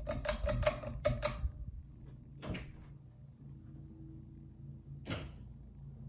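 Hampton Bay San Marino 36-inch ceiling fan running with a low steady hum. A quick run of sharp clicks and taps fills the first second and a half and is the loudest thing in the clip, followed by single clicks about two and a half and five seconds in.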